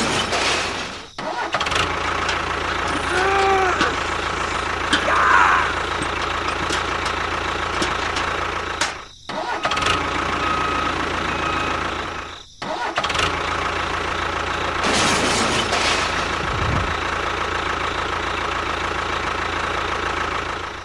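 A small motor running steadily, cutting out abruptly three times for a moment.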